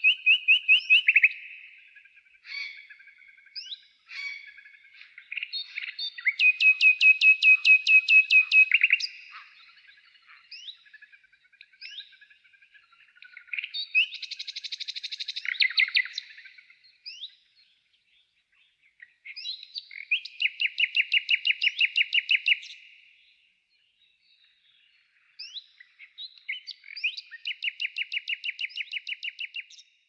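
Songbird singing a loud, fast trill of about eight notes a second that lasts two to three seconds and repeats every six or seven seconds, with short chirps and whistled notes in between.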